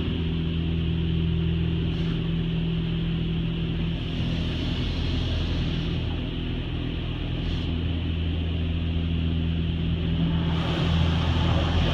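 Touchless car wash spraying water and soap over a car, heard muffled from inside the cabin as a steady rushing hiss over a constant low hum, growing a little louder near the end.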